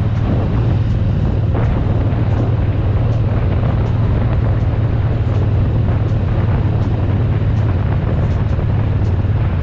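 Triumph Bonneville T120's 1200 cc parallel-twin engine running steadily at cruising speed, a constant low drone, with wind and road rush from riding.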